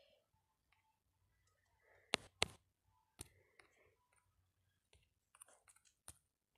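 Faint, irregular clicks of typing on a phone's touchscreen keyboard, one tap every second or so, with two quick taps close together about two seconds in.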